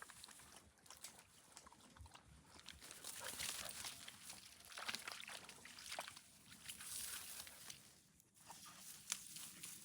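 Footsteps and dogs' paws rustling and crunching through dry autumn leaf litter, in irregular soft bursts.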